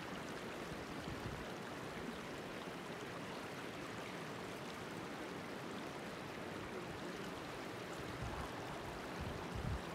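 Shallow glacial meltwater stream flowing over a pebble bed, a steady, even rush of water.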